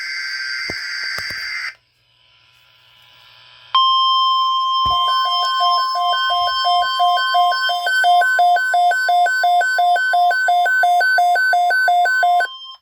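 Emergency Alert System broadcast tones. A burst of screeching SAME header data ends about two seconds in. After a short pause comes the steady 1050 Hz NOAA Weather Radio warning alarm tone, joined about a second later by a rapidly pulsing beep, about three a second. Both stop just before the alert message begins.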